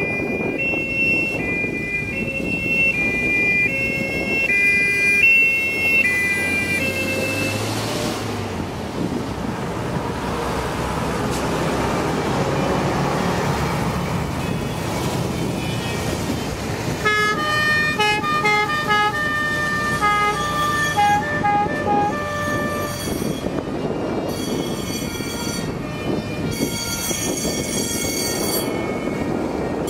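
Old fire engines driving past sounding two-tone sirens (the German "tatütata"): one alternates high and low steadily for about the first seven seconds, then after a stretch of engine and tyre noise from passing trucks, another two-tone horn at different pitches starts about seventeen seconds in.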